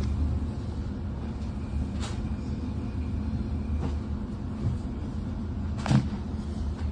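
Regional passenger train running along the track, heard from inside the carriage as a steady low rumble. A couple of faint clicks and one sharper knock about six seconds in.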